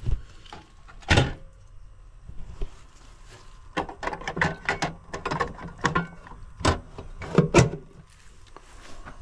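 Plastic cover of an outdoor air-conditioner disconnect box being handled and shut: a sharp knock about a second in, then a run of quick clicks and knocks in the middle.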